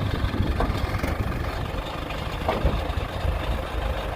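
2000 New Holland 655E backhoe loader's diesel engine running steadily at a low idle, a deep even rumble.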